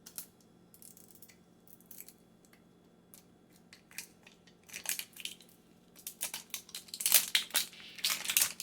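Plastic wrapping on a 5 Surprise Mini Brands capsule ball being handled and torn open. A few light clicks come first, then crinkling and tearing that grows denser and louder near the end.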